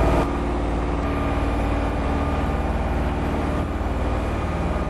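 An engine running steadily, with a low, even throb.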